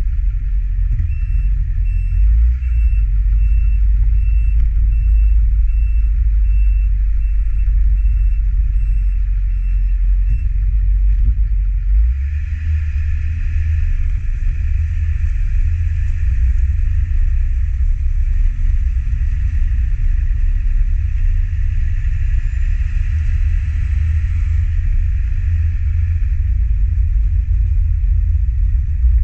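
Chevy 3500-series dump truck moving slowly, with a steady low rumble from the engine, road and wind on an exterior-mounted microphone. Through about the first third a short electronic beep repeats about once a second, then stops; from there a steady hiss rises over the rumble.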